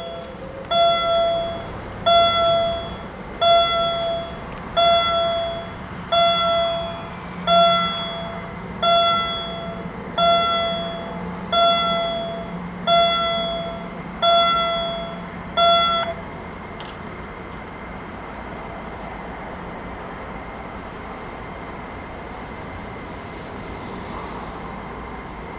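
GZT-30 level-crossing warning gongs striking about once every 1.3 seconds, a ringing tone that dies away after each strike, a dozen times in all. They fall silent about two-thirds of the way through, once the barriers are down for an approaching train.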